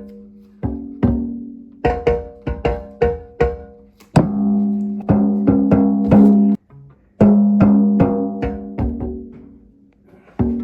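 Plucked, string-like notes: a run of twangy plucks at a few pitches, each ringing out and fading, broken by a brief gap a little past the middle.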